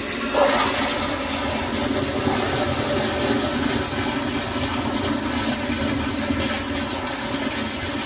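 Kohler Kingston toilet flushing through its flushometer valve: water rushing and swirling steadily through the bowl, with a steady hum from the valve in it.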